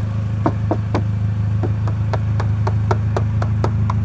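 Knuckles rapping rapidly and irregularly on a car's door and rear quarter panel, about five knocks a second. The sheet metal is lined with Eastwood sound deadener. A steady low hum runs underneath.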